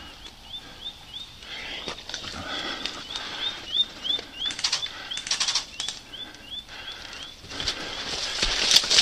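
A bird calling a long, even series of short, high, rising chirps, about three a second, that stops about seven seconds in. A few sharp clicks fall in the middle, and a louder rushing noise starts near the end.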